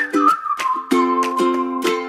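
Background music: short plucked-string chords under a whistled tune that steps down and holds one long note.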